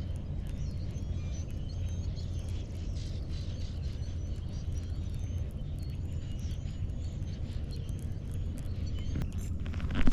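Birds chirping over a steady low rumble, with scattered faint clicks. A brief louder knock comes right at the end.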